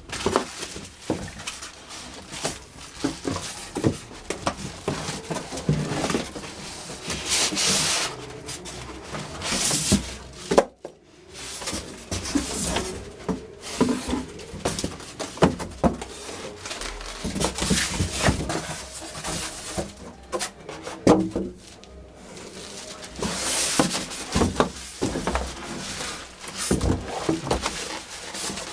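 Packaging being handled: irregular rustling and rubbing of plastic and cardboard, broken by frequent short knocks and clicks.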